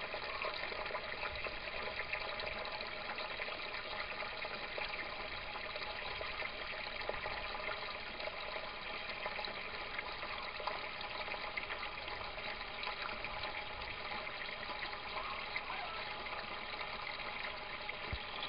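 Water running steadily in a small aquaponics test rig, with the pump filling the grow bed while a U-siphon drains it.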